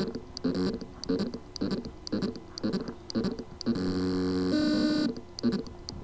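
Seagate BarraCuda desktop hard drive's spindle motor struggling to spin up: short buzzing pulses about twice a second, with one longer steady buzz a bit past halfway. This is the sound of loose motor contacts on the drive's circuit board, where the motor can spin but cannot reach its full speed.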